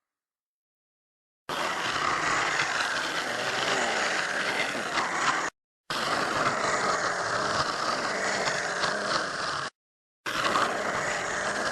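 Edited Troodon dinosaur sound effects: a noisy, hiss-like creature call without a clear pitch, played as separate clips of about four seconds each. The clips start and stop abruptly, with short silent gaps between them; the first comes after a second and a half of silence.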